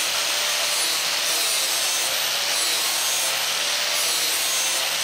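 DeWalt angle grinder with a 40-grit flap disc grinding the edge of a mulching lawn mower blade. It is a steady, even grind over a faint motor whine.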